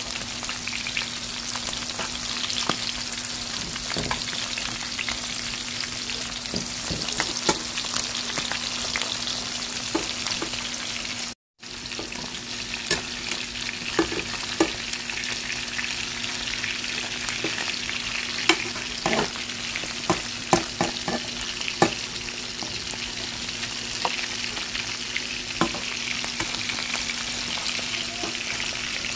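Pieces of dried fish (bulad) sizzling steadily in hot oil in a frying pan, with scattered clicks and scrapes of a metal slotted spatula turning them.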